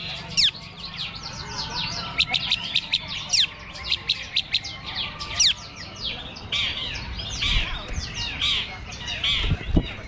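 Several long-tailed shrikes (cendet) singing at once from their contest cages: a dense stream of quick falling whistles and chirps, turning harsher and buzzier in the second half. A low thump sounds near the end.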